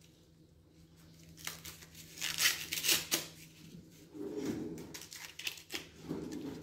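Fresh corn husks being pulled and torn off an ear of corn by hand: a few crisp rustling tears about one and a half to three seconds in, then softer rustling as the cob is handled.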